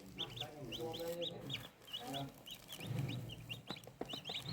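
Newly hatched chicks peeping, a quick stream of short, high chirps several a second, with lower clucking calls from a chicken mixed in now and then.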